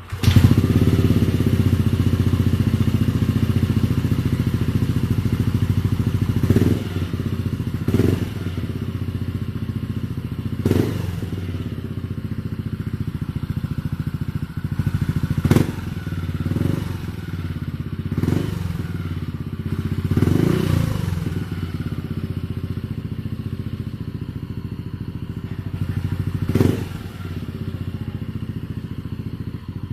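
Yamaha Aerox 155 scooter's single-cylinder four-stroke engine idling loudly through an R9 Misano aftermarket racing exhaust, with about eight short throttle blips that rise and fall back to idle.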